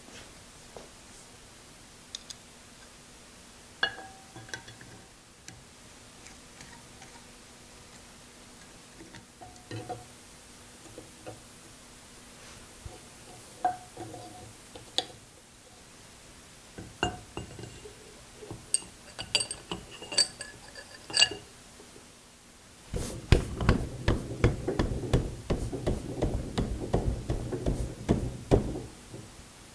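Steel lathe headstock parts clinking and ringing briefly as they are handled and set against each other. About 23 seconds in comes a louder stretch of rapid clattering and rubbing that lasts about six seconds.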